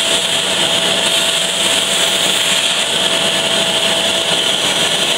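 Vacuum cleaner running steadily with a constant whine, its hose nozzle sucking dust out of a laptop keyboard.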